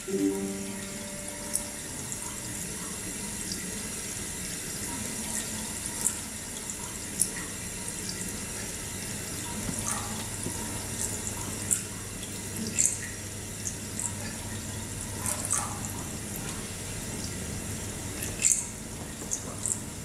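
Steady trickle of running water with irregular sharp drips, over a faint low hum.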